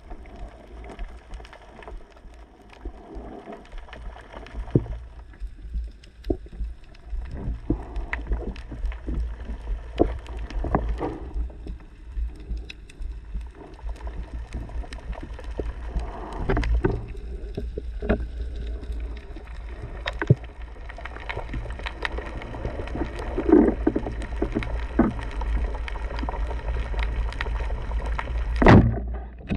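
Underwater sound recorded by a camera in its housing during a freedive along a reef: a steady low rumble with scattered clicks and knocks, and one sharp, louder knock near the end.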